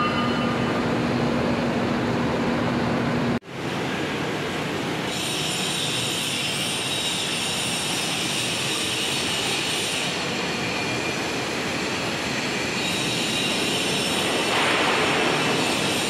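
Heavy industrial machinery running in a large steel workshop: a steady loud mechanical din with high metallic squealing tones over it. It drops out abruptly for a moment about three seconds in, then carries on.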